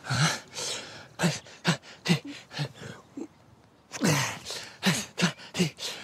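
A person gasping for breath in short breathy bursts about twice a second, with a pause about halfway through and then more gasps and a falling groan, like someone coming round after nearly drowning.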